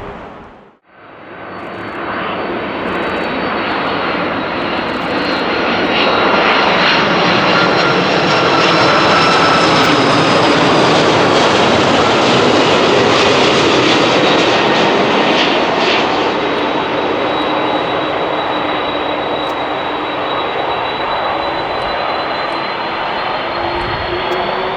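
Jet airliner engines running, a dense steady rumble with high whining tones. The sound cuts out briefly just under a second in and comes back, swelling to its loudest around ten seconds in before easing a little as the aircraft passes.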